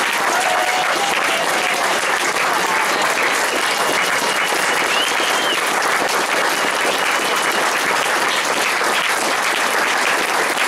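Audience applauding steadily, a sustained crowd of hand claps.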